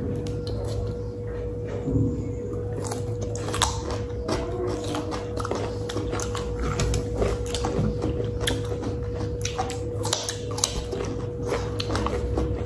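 Raw cucumber slices, lightly salted, being bitten and chewed fast, with many crisp crunches throughout.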